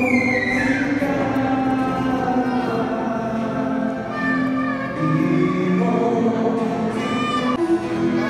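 Choir singing a slow song with long held notes.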